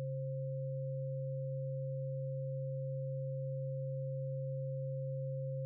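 Steady electronic sine-tone drone of a meditation soundtrack: a low pure hum with a fainter, higher pure tone above it, held without any change.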